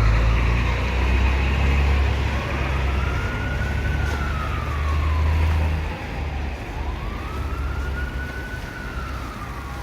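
Emergency vehicle siren wailing, its pitch slowly rising and falling about every four seconds, over a low rumble that drops away about six seconds in.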